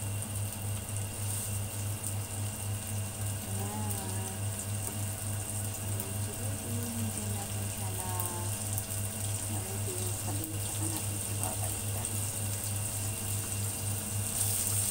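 Shrimp sizzling in hot oil in a nonstick frying pan: a steady high hiss over a steady low hum.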